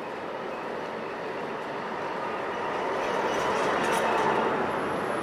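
Eurotram low-floor tram running along its rails, its noise growing louder to a peak about four seconds in, with a few light clicks from wheels on rail joints.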